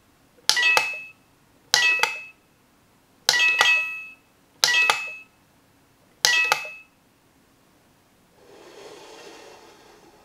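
Super Mario Mini Question Block Light chiming five times, about every second and a half, as a finger taps its top. Each tap plays a short two-note coin sound and switches the light on or off. Near the end, a quieter rustling shuffle.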